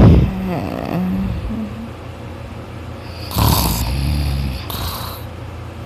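A person asleep, snoring loudly. A loud snore right at the start dies away within about a second. A long, low, buzzing snore comes about three seconds in and lasts over a second, followed by a short breath out.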